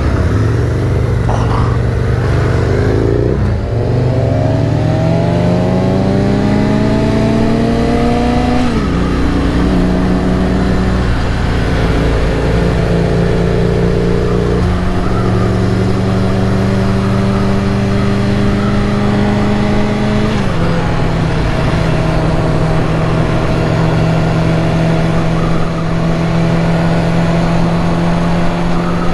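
Yamaha R6 motorcycle's inline-four engine under way: it pulls up through the revs for several seconds, drops in pitch at an upshift about a third of the way in and again about two-thirds in, then holds a steady cruise, with constant wind rush.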